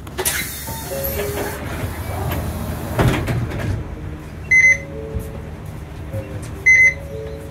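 Inside a Hino QPG-KV290Q1 city bus: a steady low engine rumble, a hiss of air lasting about a second near the start, and two short, high electronic beeps about two seconds apart.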